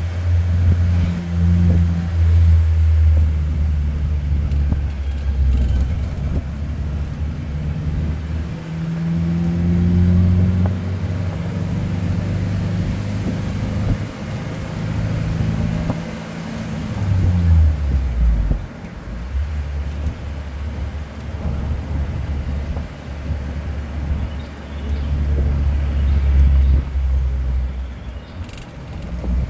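Car engine and road noise during a drive, the low engine hum shifting in pitch with speed; a little past halfway the engine note falls away as the car slows, then picks up again.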